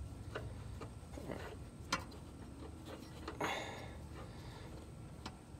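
Faint, scattered clicks and ticks with one short scrape about three and a half seconds in, from hand work threading a new oil filter onto the engine.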